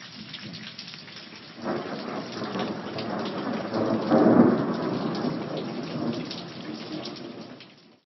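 Thunderstorm: steady rain hiss with a rumble of thunder that comes in about a second and a half in, swells to its loudest around four seconds, then fades away near the end.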